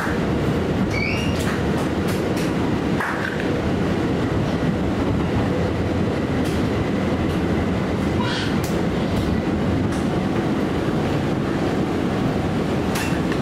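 R179 subway train running along the track, heard from inside the car: a steady rumble of wheels on rail, with occasional sharp clicks and a couple of brief high squeals about a second in.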